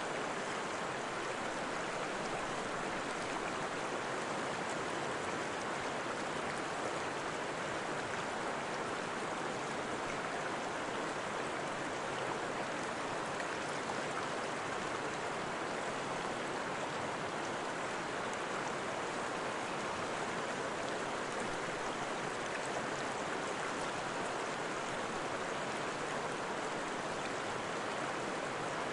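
Steady, unbroken rush of running water, like a stream.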